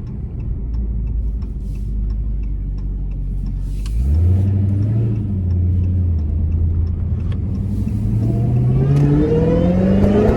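Dodge Charger Hellcat's supercharged 6.2-litre V8 pulling under acceleration, its supercharger whine sought. The engine note steps up about four seconds in, holds, then climbs steadily in pitch near the end as the revs rise.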